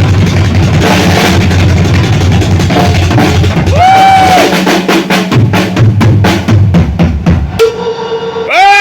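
Live rock drum solo on a full kit: fast, dense bass-drum and snare rolls that give way to a run of even, separate hits. Near the end comes a held shout, then loud crowd yells and cheering.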